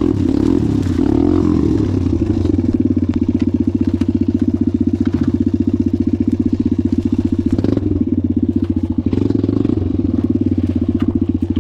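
Suzuki DRZ dirt bike's single-cylinder four-stroke engine running steadily at low revs with an even chugging pulse, with a few sharp knocks along the way.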